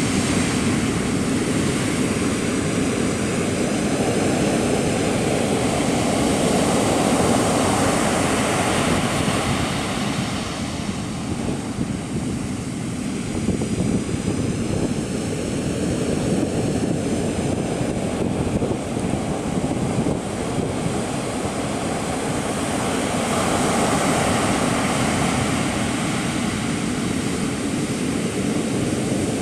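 Ocean surf breaking and washing on the shore, a steady rushing noise that swells and eases slowly, with a low rumble of wind on the microphone.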